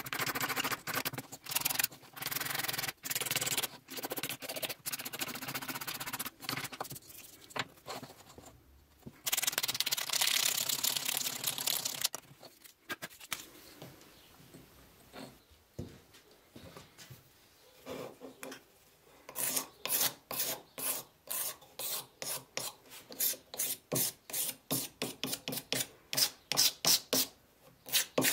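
Sandpaper rubbed by hand over the wood of an antique wooden hand plane, its wedge and then its body. Scratchy rubbing runs for about twelve seconds and goes quiet for a while. From about two-thirds of the way in come quick back-and-forth strokes, about three a second.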